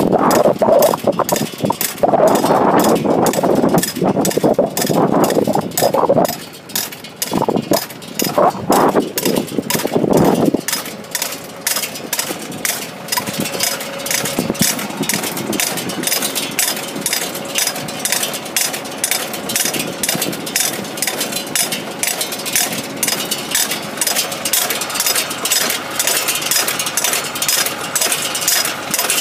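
Tractor engine running steadily under a tractor-drawn seedling transplanter, with a fast, even clicking of about three clicks a second over it. For the first ten seconds a louder, uneven sound sits on top, then only the steady running and clicking remain.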